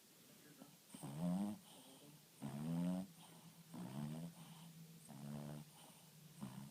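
A sleeping pet snoring: four pitched snores, each about half a second long and rising slightly in pitch, coming roughly every second and a half.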